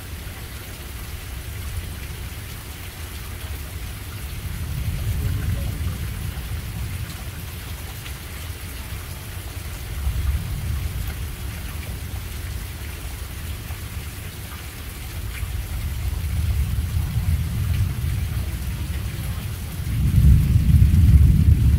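Steady rain falling during a night thunderstorm, with thunder rolling in low swells several times and the heaviest rumble near the end.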